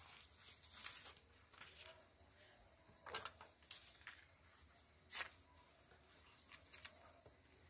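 Faint paper handling: a few short rustles and crinkles as a sticky printed paper strip is moved and held against a journal page. The clearest come about 3 and 5 seconds in.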